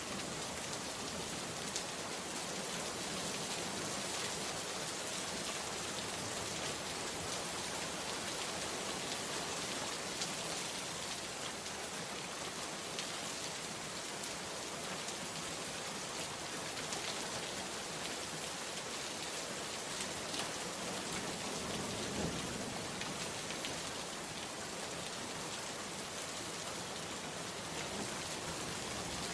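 Steady rain falling on a surface, an even hiss with scattered individual drops ticking.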